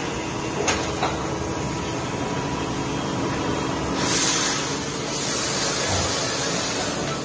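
Industrial machinery running steadily with a hum, two sharp clicks about a second in, and a louder hiss from about four seconds.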